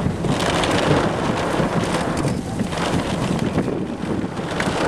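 Thunderstorm wind gusting over the microphone with rain falling, and scattered sharp raindrop ticks.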